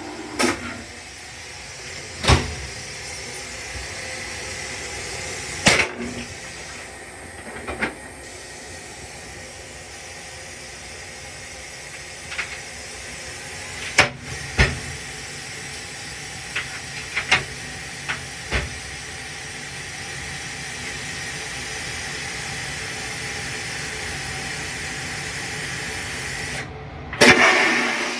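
Steady hiss and rumble of a Long Island Rail Road M3 railcar, heard inside its small steel restroom, with scattered sharp clicks and knocks and a loud, brief rush of noise near the end.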